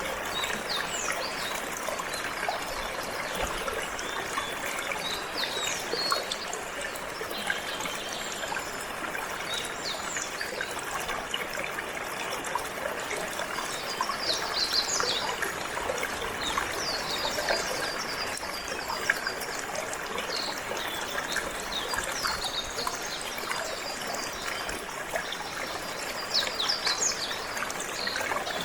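Water running and trickling steadily, with canaries chirping in short high bursts scattered over it.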